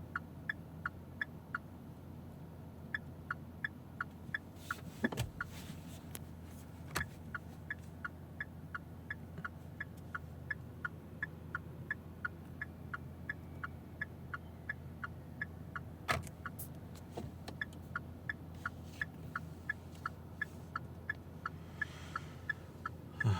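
Hyundai Tucson L's dashboard turn-signal ticking, about three clicks a second, with a crackly, distorted (破音) sound the owner blames on a faulty repair. A few louder knocks come about a fifth of the way in, again shortly after, and once near the middle.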